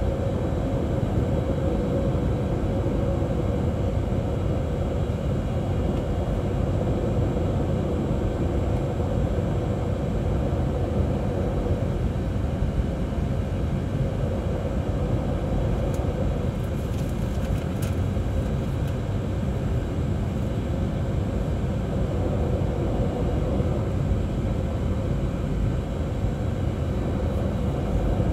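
Steady low rumble of a jet airliner's engines at low ground power during taxi, heard inside the passenger cabin, with a steady hum over it.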